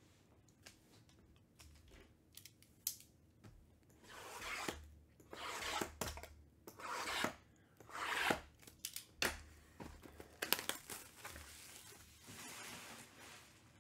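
Plastic shrink-wrap on sealed trading-card boxes being slit with a small blade and torn off, a run of ripping, crinkling strokes with sharp clicks between them. It starts a few seconds in and goes on almost to the end.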